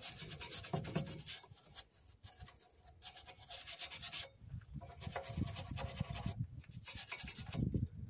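Wire brush scrubbing brake dust and rust off a truck's front brake caliper bracket, in runs of quick rough strokes with short pauses between them.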